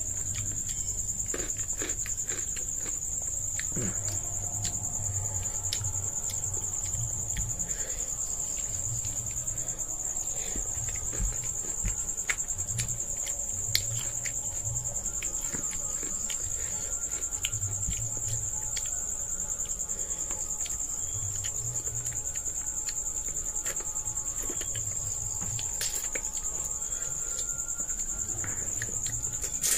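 A cricket's continuous high-pitched trill runs steadily throughout. Over it come scattered small clicks and smacks of fingers scooping rice off a plate, and of chewing.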